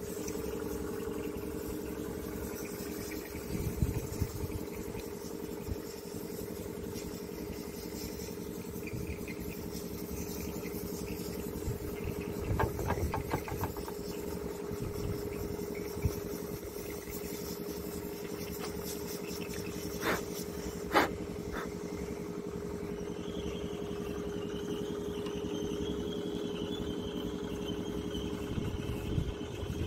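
An engine idling steadily, with a few light clicks about halfway through and again about two-thirds of the way in as small parts of a sensor cap are handled.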